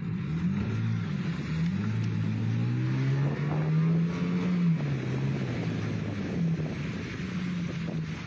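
Small motorboat's engine running, its pitch wandering up and down with the throttle, held higher for a couple of seconds and dropping back about halfway through.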